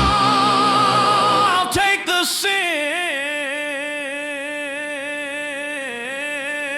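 Rock music in which the band cuts out, leaving a lone held note. After a brief break about two seconds in, a long wordless sung note carries on alone with a steady, even vibrato.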